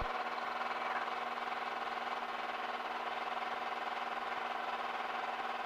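Small aircraft's engine and propeller drone heard through the headset intercom feed, a steady hum of even tones, in a gap between radio transmissions. A click at the start as the radio broadcast cuts off.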